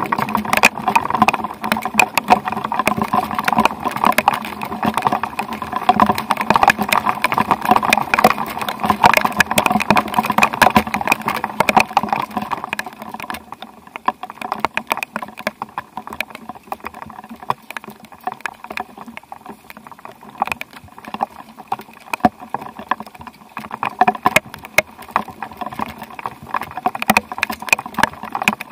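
Rain pattering, a dense spatter of drops, heavier for the first dozen seconds and then easing to a lighter patter.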